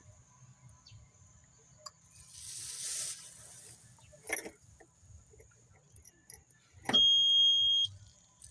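A hissing rush swells and stops, then a short knock, then one loud, high electronic beep lasting about a second.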